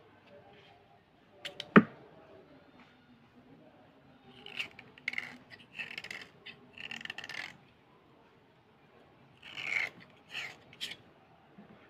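Metal blade scraping along a slate pencil, shaving off its outer layer in short rasping strokes, in two runs of several strokes each. A sharp click just under two seconds in is the loudest sound.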